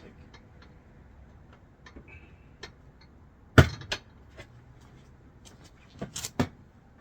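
Clinks and knocks of metal mounting hardware being handled and set in place: scattered light clicks, one sharp knock about three and a half seconds in, and three quick knocks near the end.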